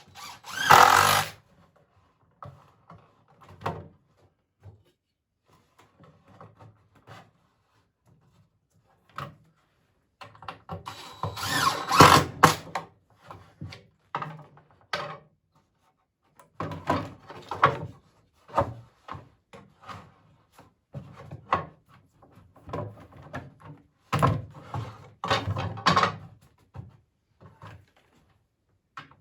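A power drill driving screws into poplar boards, in several short runs of one to three seconds, with light knocks of wood being handled between them.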